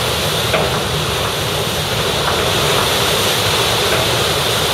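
Steady rush of wind and splashing water on a moving shrimp cutter, over the low drone of its engine.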